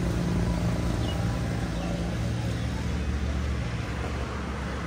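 Low, steady drone of a motor vehicle's engine running, easing off slightly near the end.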